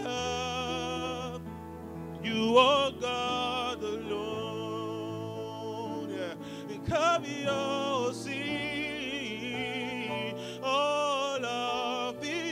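A man singing a gospel worship song in long, wavering notes over sustained chords from a Yamaha Motif XF8 keyboard.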